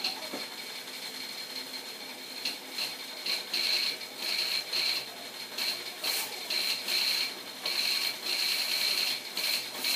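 Pressure washer lance spraying snow foam onto a car in short repeated bursts, starting a couple of seconds in, over a steady high whine.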